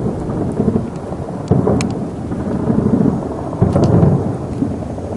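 Distant shelling and gunfire in a heavy firefight: a continuous low rumble of explosions, with heavier blasts about a second and a half in and again near four seconds, and a few sharp cracks of gunfire.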